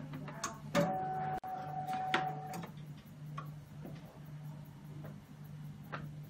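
Hematology analyzer running its startup cycle and background test: a few sharp mechanical clicks over a steady low hum, with a whining motor tone that stops about two and a half seconds in.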